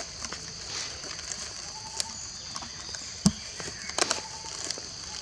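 Steady high-pitched drone of insects, with scattered clicks and rustles of a bag and plastic being handled and one sharper knock about three seconds in.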